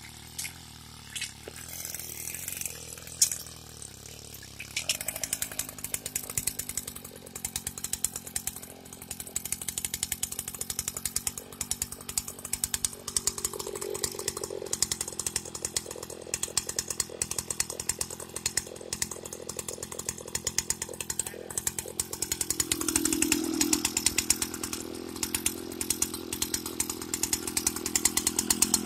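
Suzuki Max R 100 two-stroke engine on a homemade mini tiller, running with a fast, even beat as it drives the rotary tines through chains. It picks up speed about five seconds in and revs higher again a little past twenty seconds.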